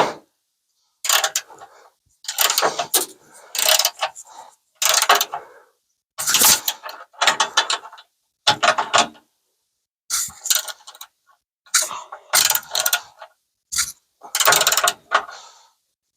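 Hand ratchet wrench clicking as it is worked back and forth to tighten a nut, in about ten short bursts of rapid clicks with brief pauses between strokes.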